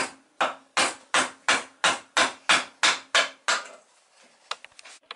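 Round wooden mallet striking the handle of a gouge, about three even blows a second, eleven in all, as the gouge cuts away red fir; a few lighter taps and clicks follow near the end.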